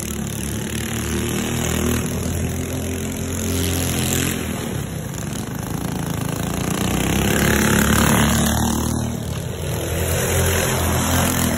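Small go-kart engines running and revving up and down as karts race around a dirt track. The engine note swells as a kart passes close about eight seconds in, the loudest moment.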